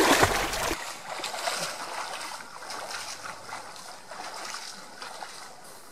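A loud splash of water as a swimmer pushes off from a pier into a lake, followed by fainter, uneven splashing of swimming strokes that slowly fades.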